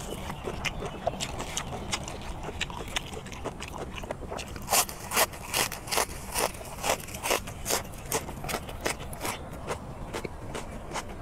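Crunchy biting and chewing of raw green onions: small crackles at first, then from about four and a half seconds in a run of crisp crunches, roughly two to three a second, dying away near the end.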